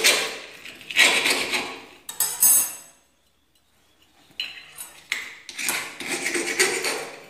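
Hand file rasping back and forth over a metal gas-stove burner part, a run of gritty scraping strokes, a pause of about a second near the middle, then more strokes. The burner piece is being filed clean because the stove's burners are hard to light.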